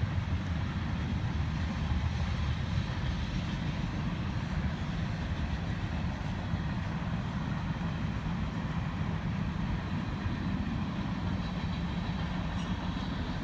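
Freight train rolling past along the railroad tracks, a steady rumble, with rain falling.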